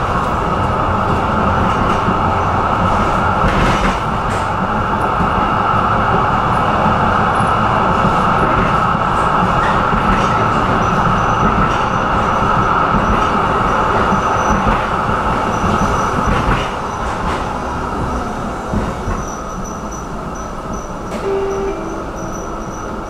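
Tram running on its rails with a steady rumble of wheels and running gear; the noise eases off about two-thirds of the way through.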